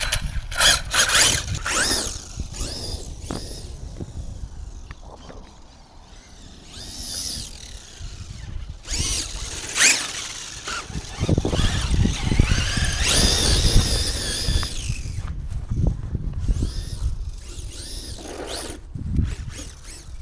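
Brushless electric HPI Baja RC buggy driving on grass, its motor and drivetrain whining up and down in pitch through several bursts of acceleration, over a low rumble.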